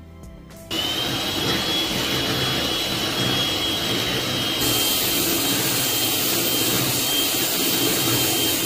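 Electric hand mixer running, its beaters whisking chocolate brownie batter in a glass bowl. The motor starts about a second in with a steady high whine and cuts off suddenly at the end.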